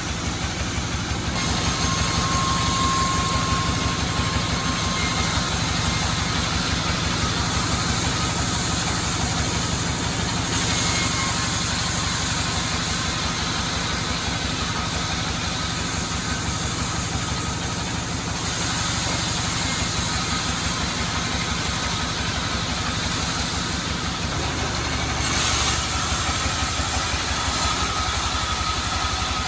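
A sawmill running while teak is sawn: an engine runs steadily under a high hissing saw noise that changes level several times, with a faint steady whine.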